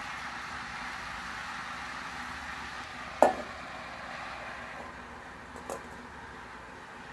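Grated papaya and coconut frying in an iron kadai with a steady sizzle. About three seconds in, a stainless-steel lid clanks onto the pan, with a lighter clink near six seconds.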